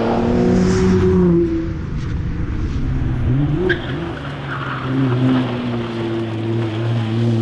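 Nissan R35 GT-R's twin-turbo V6 under race load: it pulls up in pitch for about a second and a half, then lifts off and drops. It picks up again around the middle with a sharp click and runs on, rising slowly. Tyre noise runs under the engine.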